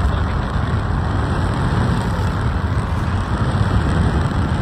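A car in motion: a steady low rumble of engine and road noise.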